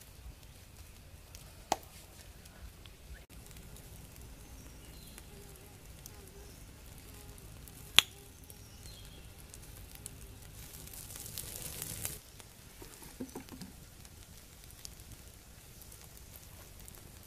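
Cooking over a fire: faint crackling with two sharp clicks, the louder one about eight seconds in, and a short burst of sizzling hiss a few seconds later.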